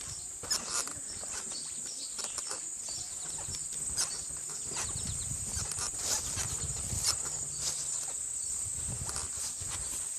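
Farmyard sounds among livestock pens: scattered clicks and knocks with low animal noises, over a steady high-pitched whine.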